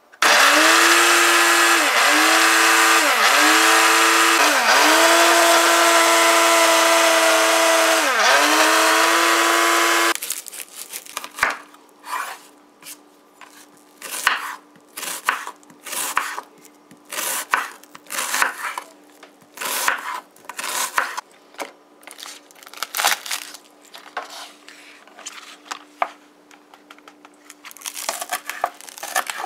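Electric countertop blender running for about ten seconds, chopping garlic cloves and hot peppers, its pitch dipping several times as the blades catch the pieces, then cutting off. After that, a kitchen knife slices an onion and then scallions on a wooden cutting board in quick, uneven strokes.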